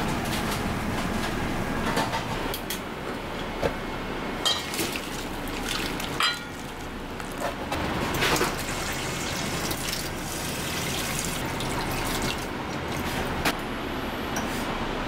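Water running into a steel bowl in a stainless steel sink, a steady splashing, with occasional sharp clinks of metal bowls and pans.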